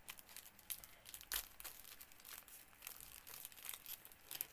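Hockey card pack wrapper being torn open and crinkled by hand, with irregular sharp crackles throughout.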